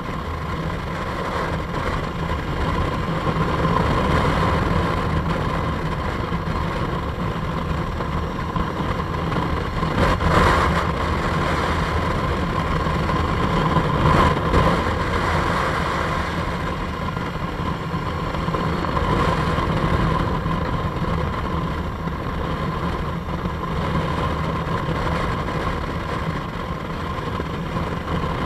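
Motorcycle engine running while riding at road speed, with wind rushing over the camera microphone. Two brief louder rushes come about ten and fourteen seconds in.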